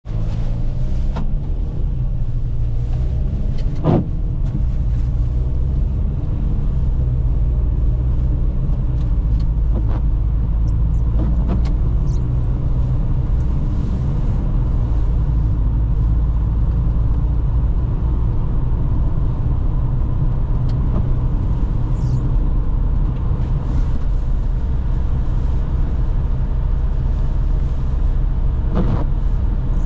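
Car driving on a wet road, heard from inside the cabin: a steady low engine drone and tyre rumble. A few short sharp knocks stand out, the loudest about four seconds in.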